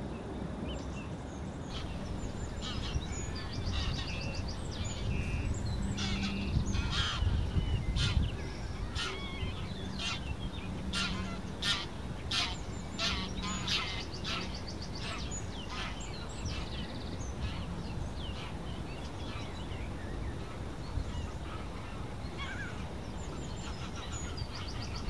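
Greylag geese honking as they fly over, a run of repeated short calls that is densest in the middle, over a steady low background rumble.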